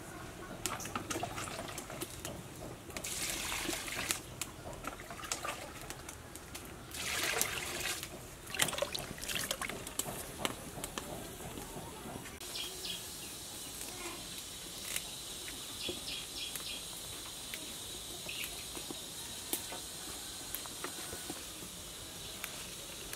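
Water in a large aluminium pot of bamboo shoots and rice: splashing and knocking in the first half, then, from about halfway, the pot boiling with a steady bubbling.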